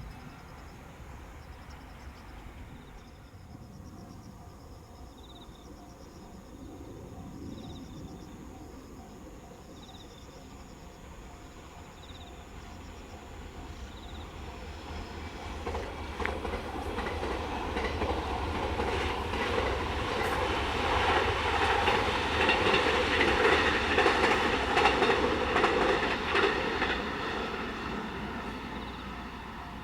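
Electric train passing close by on the rails: a low rumble at first, then from about halfway the clatter of wheels over rail joints builds up, is loudest a few seconds before the end, and begins to fade.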